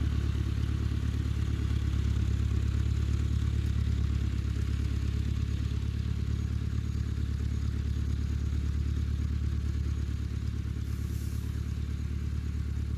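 Small tractor's engine running steadily under load as it pulls a plough through garden soil.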